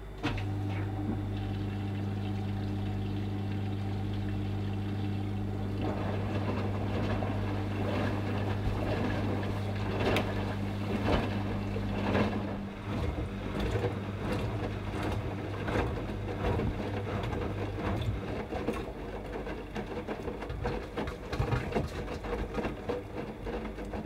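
AEG 8000 Series Lavamat washing machine tumbling a wet wash load. Its drum motor starts with a steady hum at the outset, and wet laundry and water slosh and thud in the drum. The sloshing grows busier from about six seconds in, while the hum fades over the second half.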